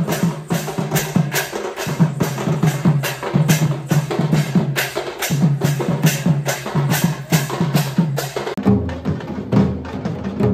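Processional drums and percussion beating a fast, even rhythm of about four strokes a second. About eight and a half seconds in, the sound cuts abruptly to a different drum group.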